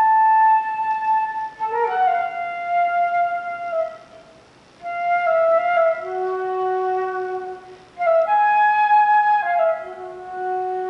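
Solo flute playing slow phrases of long held notes, with short breath gaps about four seconds in and again near eight seconds; each later phrase settles onto a low held note.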